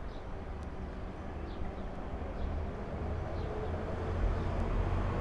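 Street traffic: a steady low rumble of passing vehicles, growing louder near the end as a vehicle comes closer.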